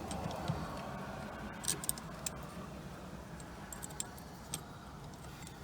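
Light metallic clinks and ticks of small screws and a hex key being handled while the screws are started by hand, a few sharp ones scattered through, strongest in the middle.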